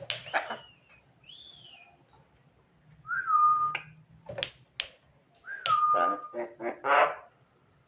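Javan myna (jalak kebo) calling: a series of whistled notes, two of them held level for about half a second, a few sharp clicks, and near the end a quick run of harsh, rasping notes.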